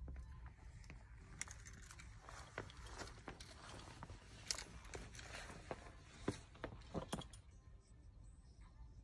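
Faint rustling with a string of light clicks and knocks, from about a second and a half in until about seven seconds in: close handling noise, of the kind made by a phone being moved about and metal gear shifting on a climbing harness.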